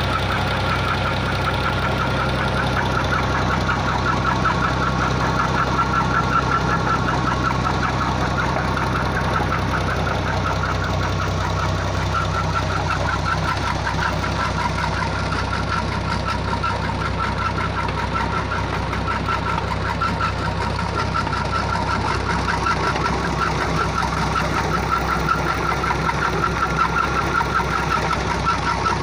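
Ghazi diesel tractor engine running steadily with a fast, even rhythm, driving a tubewell pump through its PTO shaft and a flat belt over a large pulley.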